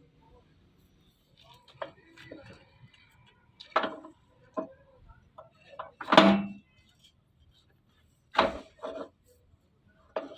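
A few separate metal knocks and clanks, some ringing briefly; the loudest comes about six seconds in, with two more near the end.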